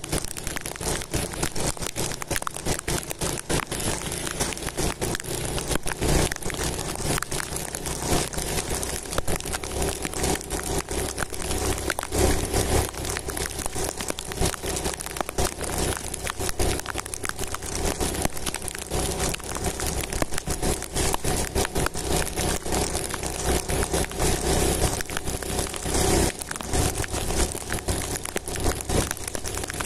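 Crackling wind and rain noise on the microphone of a camera riding on a moving motorcycle in light rain, over a faint steady hum from the motorcycle.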